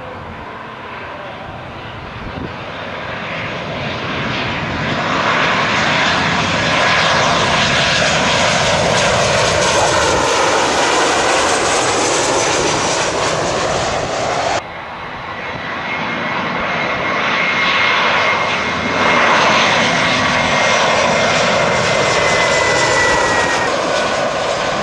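Turbofan engines of two jet airliners on landing approach passing low overhead. First a Ryanair Boeing 737-800 swells to a loud, steady engine noise with whines gliding in pitch, cut off abruptly about halfway through. Then a Condor Airbus A320-family jet builds up with a high steady engine whine.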